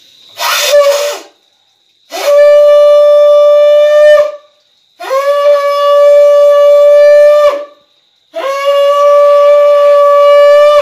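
A conch shell (shankha) is blown by mouth at a household shrine: a short puff, then three long, steady blasts, each scooping up to pitch as it starts. Three blasts like this are the customary sounding of the conch at the evening lamp puja.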